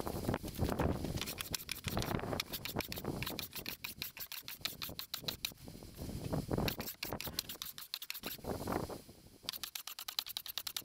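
Stanley No. 80 cabinet scraper pushed across a wooden tabletop in repeated scraping strokes, roughly one a second with short pauses, each stroke a fast, raspy chatter. It is taking fine shavings to smooth squirrely grain around a knot.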